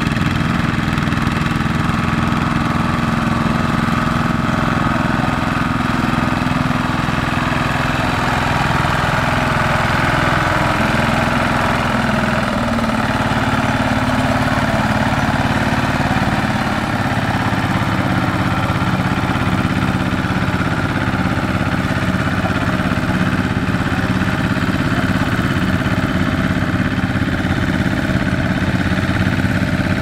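Single-cylinder diesel engine of a two-wheel walking tractor running loudly and steadily under load as it pulls a loaded trailer through paddy mud.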